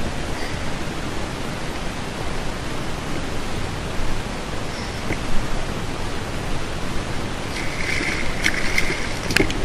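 Steady rushing of wind and sea on the kayak-mounted camera's microphone. Near the end, a brief high whir with several sharp clicks.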